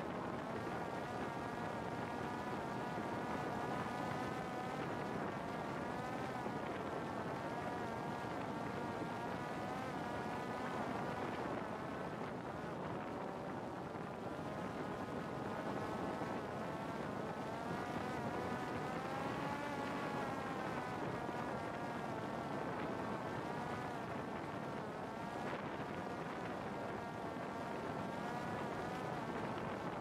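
A Parrot Disco fixed-wing drone's electric motor and rear pusher propeller whine steadily, the pitch rising and falling a little with throttle changes, over a rush of wind.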